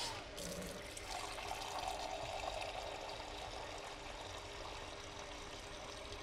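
Water being poured into a large stockpot of chunky vegetable soup, a steady pour that is a little louder for the first few seconds.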